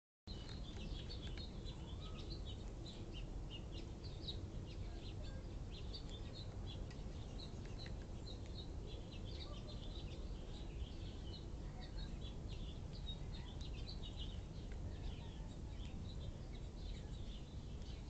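Small birds chirping: many short, high chirps scattered all through, over a steady low background rumble.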